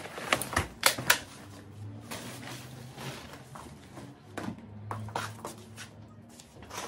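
A YOYO pushchair being opened out: several sharp clicks and clacks from its folding frame in the first second or so, then a low rumble of its wheels rolling across a laminate floor, twice.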